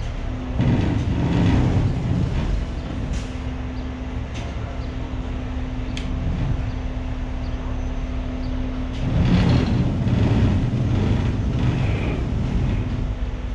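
Heavy rotator tow truck's diesel engine running steadily with a constant hum, rising in two louder stretches of rumbling noise, one about a second in and one about nine seconds in, with a few sharp clicks.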